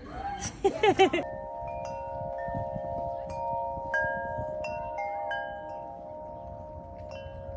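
Metal tube wind chimes ringing as the breeze strikes them. The tubes strike several times, and their clear tones sustain and overlap. A short, loud burst of voice sound comes in the first second, just before the chimes begin.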